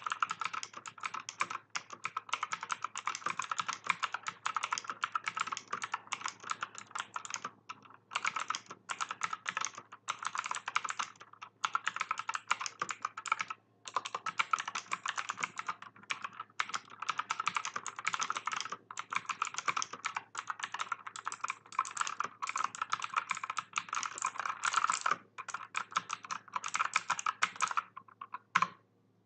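Fast, continuous typing on an AUKEY mechanical keyboard with Outemu Blue clicky switches, a dense run of sharp key clicks broken by a few short pauses. The switches are quite loud.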